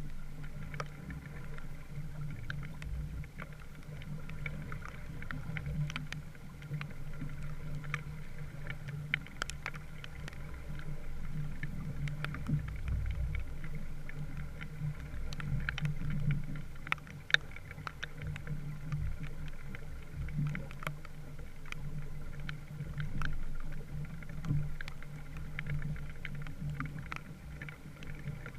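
Small wooden sailboat underway: water washing along the hull, over a steady low hum and scattered sharp ticks and splashes.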